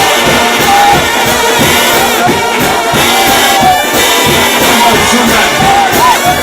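A shout band, a trombone choir, playing loud, driving gospel music over steady percussion, with the crowd singing along.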